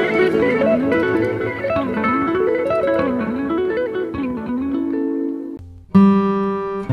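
Background music led by a plucked guitar melody that steps up and down. Near the end it drops away for a moment, and a new ringing chord starts.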